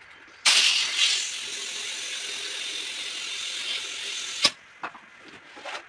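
Compressed air hissing from a workshop air hose: it starts abruptly about half a second in, loudest at first, holds a steady hiss for about four seconds, then cuts off with a click.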